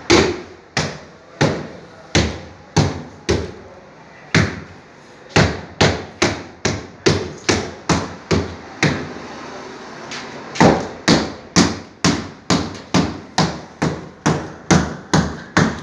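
Hammer blows on a nailed wooden packing crate, knocking it apart: a steady run of sharp strikes, about two a second, pausing briefly twice.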